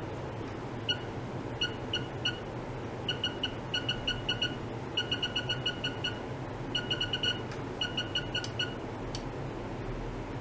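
Digital function generator giving short electronic beeps as its controls are operated, in quick runs of several beeps with brief gaps, over a steady background hiss and hum.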